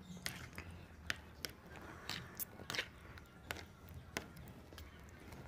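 Metal spoon and fork clicking and scraping against a plastic plate while meatballs and tofu are cut up, a faint series of irregular taps.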